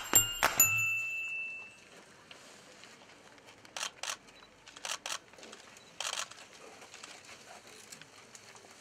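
A bell-like logo chime ringing out and fading over the first couple of seconds. Then faint outdoor ambience with a handful of short hissy bursts, some in quick pairs, around the middle.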